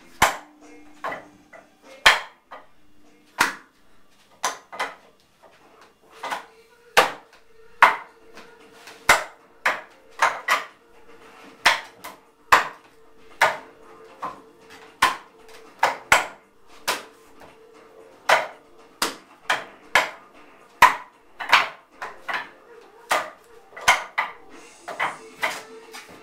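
Wing Chun wooden dummy (mook jong) being struck by hands and forearms in freestyle practice: an irregular series of sharp wooden knocks and clacks, often in quick twos and threes, as the arms and trunk are hit.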